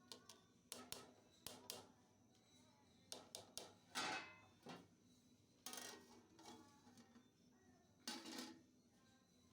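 Metal cooking utensils knocking and scraping against a pot: quick clusters of sharp clinks, with three longer, louder scrapes.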